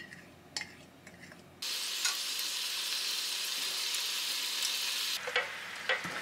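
Red sauce sizzling in a frying pan, a steady hiss that starts abruptly about one and a half seconds in, after a quiet moment with a few small ticks. Near the end the hiss drops away into soft knocks and plops as fried chicken pieces are pushed off a tray into the sauce with chopsticks.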